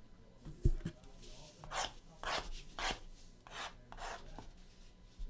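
A low thump less than a second in, then about six short scraping strokes, roughly two a second: trading cards being handled and slid against one another.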